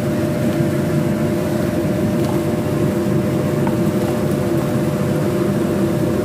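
Steady low mechanical hum and rumble with a constant drone, like a kitchen motor or fan running, and a couple of faint ticks.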